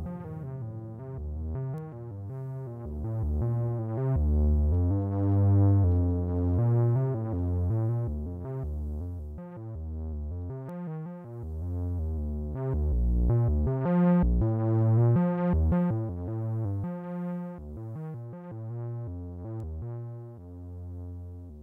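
Korg ARP 2600 M analogue synthesizer playing a run of changing notes, its filtered tone swelling and fading in loudness over and over. The filter output is being panned between left and right by the ring modulator and VCA.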